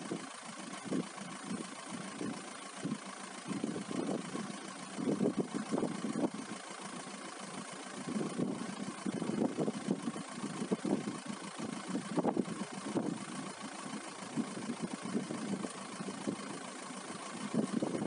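Strong wind in a snowstorm gusting against the microphone, in irregular surges every second or two over a steady hiss.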